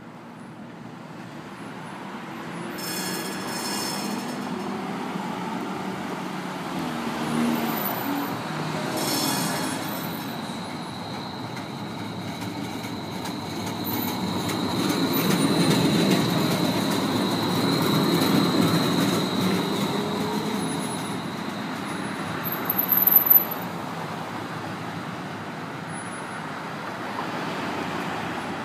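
DC Streetcar tram running along a street on its rails, the rumble swelling and easing as it passes, with a steady high whine through the middle and a brief loud burst near the end.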